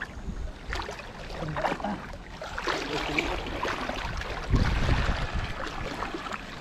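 Shallow river water splashing and sloshing irregularly, with a heavier splash about four and a half seconds in.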